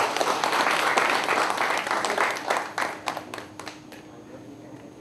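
Audience applauding, dense at first, then thinning to a few scattered claps that die out about four seconds in.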